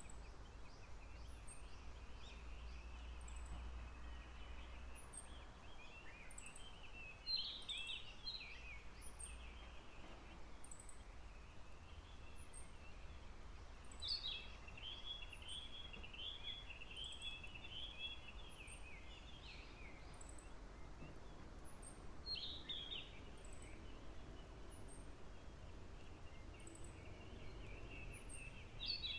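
A songbird singing phrases of quick warbled notes, each opening with a sharp high note, repeated every seven or eight seconds. A faint, very high short note repeats every second or two behind it over a low outdoor rumble.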